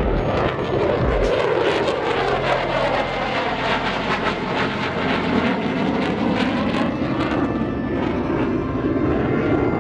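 Jet aircraft flying overhead: a continuous rushing engine noise whose pitch sinks as it passes over.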